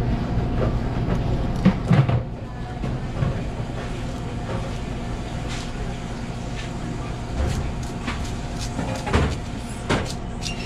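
Steady low hum of kitchen machinery, with a few light knocks and clicks from the knife and hands working a black cod fillet on a cutting board, the loudest about two seconds in.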